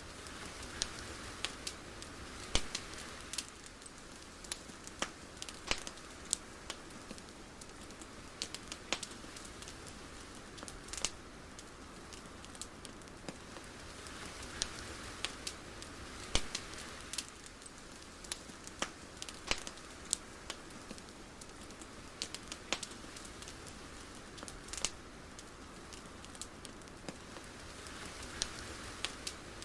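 Steady ambient hiss with sharp crackles and pops at irregular intervals, several a second at times, and soft swells of noise rising and fading every several seconds.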